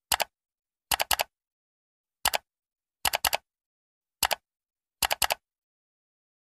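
Keyboard typing sound effect: short clicks in clusters of two or three, about one cluster a second, stopping about a second before the end.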